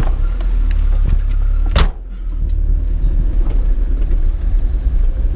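Car engine running with a steady low rumble as the car drives off. About two seconds in there is one sharp knock, after which the rumble briefly drops and builds up again.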